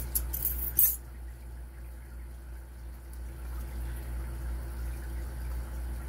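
A few small metallic clicks from a disassembled padlock's pins and pinning tools being handled, with the sharpest click near the end of the first second. After that there is only a steady low hum.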